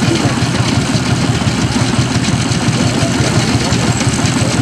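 Vintage steel-wheeled tractor engine running steadily with a rapid, even beat while pulling a working reaper-binder.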